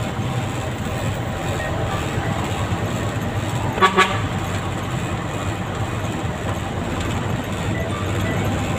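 Fuso tractor head's 10DC11 diesel engine running steadily, heard inside the cab while cruising in fourth high of its 10-speed transmission. About four seconds in, a horn toots twice in quick succession and is the loudest sound.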